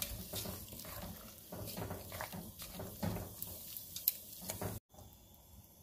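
Wooden chopsticks stirring vegetables in a pot of hot broth: light liquid sloshing with scattered soft taps, with a brief dropout near the end.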